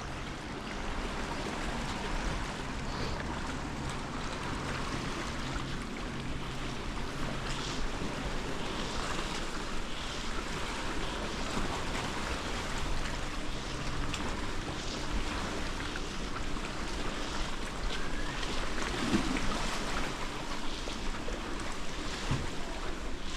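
Steady beach ambience: surf washing with wind on the microphone, and a faint low hum underneath.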